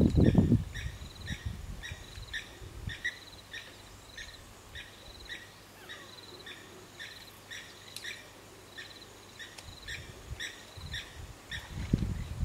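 Outdoor ambience of short chirping calls repeated about twice a second, from insects or birds. Low rumbling bumps at the start and again near the end are the loudest sounds, and a faint low hum runs through the middle.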